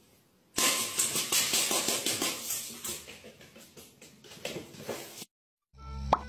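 Dry cat food rattling in a stainless steel bowl as it is shaken, a dense clatter of many small clicks. It starts abruptly about half a second in, is loudest at first, tapers off over about four seconds, then cuts off. A low hum starts just before the end.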